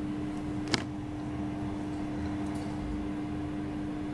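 Steady low room hum with one even tone held throughout, and a single sharp click about three quarters of a second in.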